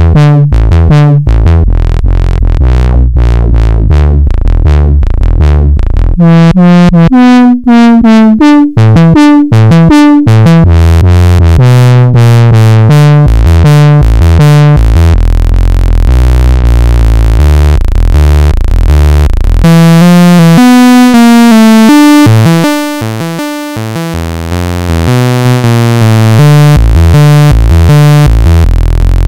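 A sawtooth-wave synthesizer sequence of short bass notes played through an SE 4075 resonant filter module. Its cutoff and resonance are turned by hand, so the tone keeps sweeping between bright, ringing, peaky timbres and duller ones. Near the end it briefly thins and drops in level.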